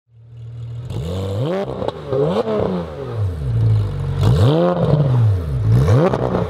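A car engine idles briefly, then is revved in a series of quick throttle blips, its pitch climbing and dropping each time.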